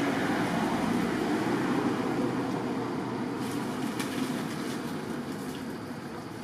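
Steady rushing of river water around swimming monkeys, easing off slightly toward the end, with a few faint splashes or ticks about halfway through.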